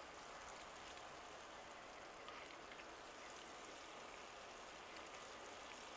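Faint, steady sizzling of Wagyu ribeye steaks and butter on a hot grill grate, with a few soft crackles.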